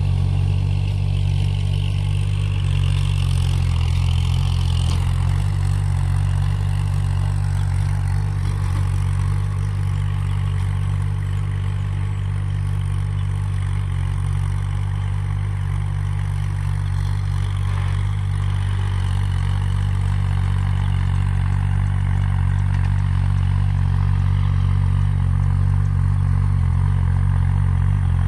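Kubota tractor's diesel engine running steadily, pulling a rotary tiller, with a constant low hum.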